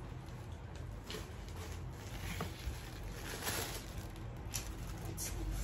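A handbag being unzipped and the crinkly wrapping stuffed inside it pulled out, rustling in several short bursts.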